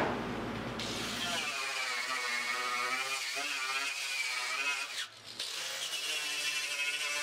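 Handheld power tool spinning an abrasive stripping disc against car body panel steel, grinding paint off down to bare metal. The motor's whine wavers in pitch as it is pressed on and eased off, and dips briefly about five seconds in.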